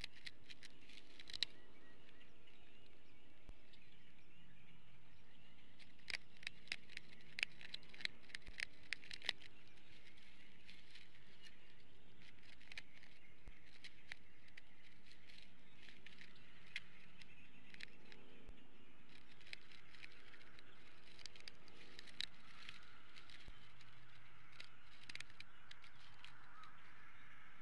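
Sticks and dry grass of a bald eagle's nest crackling and clicking as the eagle shifts on it, with a quick run of sharp clicks about six to nine seconds in, over a steady outdoor hiss.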